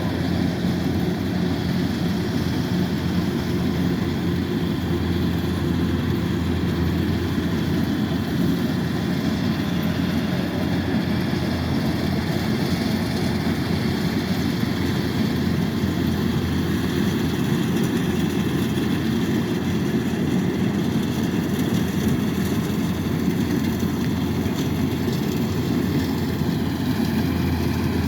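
Kubota DC-108X combine harvester running steadily as it harvests rice: a continuous, even engine-and-machinery noise with no change in pace.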